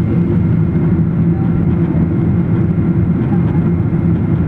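Boeing 777 jet engines and airflow making a steady drone, a low hum with a few steady tones in it.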